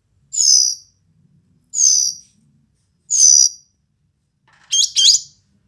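Verditer flycatcher singing: three high, down-slurred buzzy calls about a second and a half apart, then a quick pair of sharp, up-hooked notes near the end.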